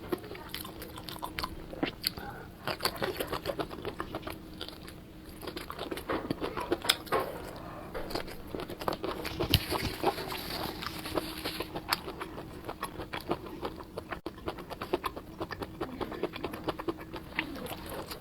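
Close-miked crunchy biting and chewing of fried food: many irregular crisp crackles and smacks, one mouthful after another.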